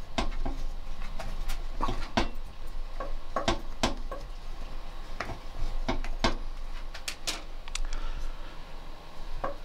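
Irregular small clicks and knocks of a removed kitchen faucet body being handled and turned over in the hands.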